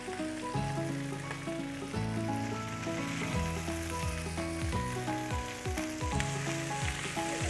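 Hot garlic butter sizzling and bubbling steadily in a roasting pan around roasted chicken leg quarters, under background music with a held, stepping melody.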